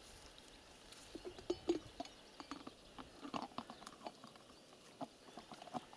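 A tethered horse working at its rope knot on a birch trunk with its mouth. Faint, scattered clicks, rubs and creaks of rope and tack.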